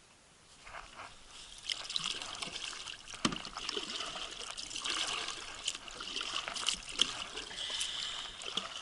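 Kayak paddle strokes: water trickling and dripping off the blade, with small splashes that build up about two seconds in and a single light knock a little after three seconds.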